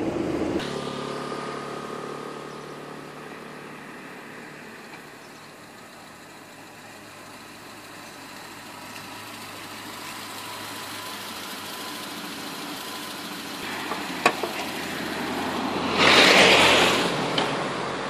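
Small Suzuki hatchback's engine running as the car drives up and pulls in, growing louder over several seconds. Near the end there is a sharp click, followed by a short, loud rush of noise.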